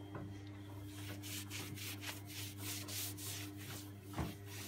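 Cleaning cloth wiping back and forth over a smooth hard bathroom surface in quick, even strokes, over a steady low hum.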